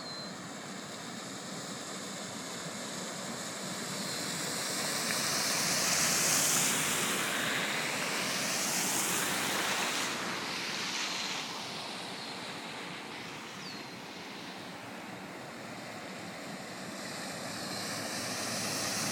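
Cars driving through deep tidal floodwater on the road: a steady rush of tyres spraying water, swelling as each car passes, loudest about six to eleven seconds in and building again near the end.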